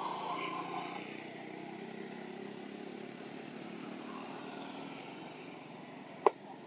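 A motor vehicle's engine running, loudest at the start and fading away, with a single sharp click about six seconds in.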